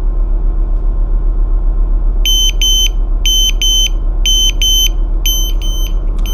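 Riken Keiki GX-2009 portable gas detector's alarm buzzer beeping in quick double beeps, about one pair a second, starting a little over two seconds in just after the unit powers up. It is the calibration-limit warning: the detector is due for calibration. A steady low hum runs underneath.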